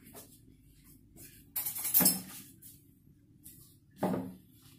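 Kitchen utensils being handled: a short clatter about a second and a half in, the loudest sound, and a smaller knock about four seconds in.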